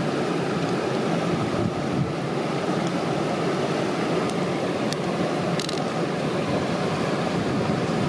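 Steady rushing of a fast-flowing river, an even wash of water noise, with a few faint clicks in the middle.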